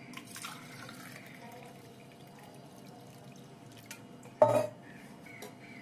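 Faint dripping and trickling of water into a steel pot of washed rice, just after a glass of water has been poured over it. A brief, louder bump about four and a half seconds in.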